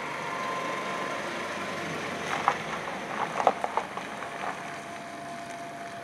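A Ford pickup truck driving past and turning in, its engine and tyre noise swelling over the first two seconds. From about two to four and a half seconds in comes a run of short sharp knocks and crunches as it rolls off the tarmac onto the unpaved drive.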